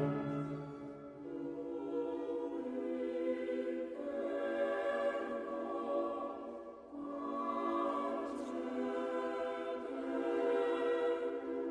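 Music: slow, sustained choir-like chords, each held for a few seconds before changing to the next.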